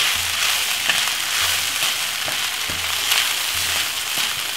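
Vegetable fried rice sizzling steadily in a hot nonstick frying pan while a wooden spatula stirs and tosses it, with a few light clicks of the spatula.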